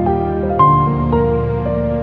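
Slow, soft background music of held notes that change one after another, with a new note struck about half a second in.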